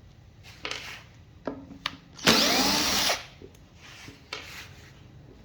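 A supercapacitor module's packaging being opened by hand: a few light knocks and clicks of handling, then a loud harsh scraping burst lasting nearly a second, about halfway through.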